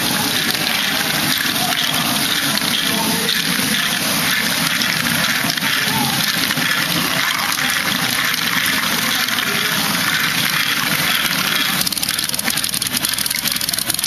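Steady clatter of many small plastic balls rolling and tumbling through LEGO Great Ball Contraption modules, with their motors and gears running. A denser run of fine clicks comes in near the end.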